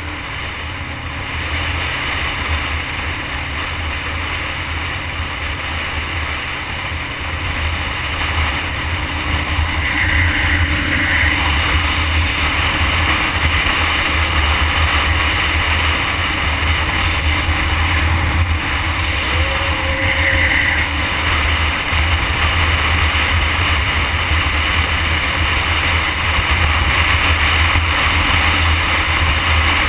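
Kawasaki Ninja EX500 parallel-twin running under way, heard from a camera on the bike itself under a steady rush of wind and road noise with a heavy low rumble. The sound grows louder over the first ten seconds or so, then holds steady.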